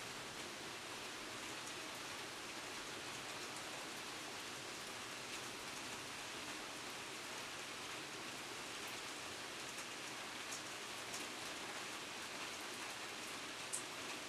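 Steady rain falling, with a few separate drops ticking now and then, one a little sharper near the end.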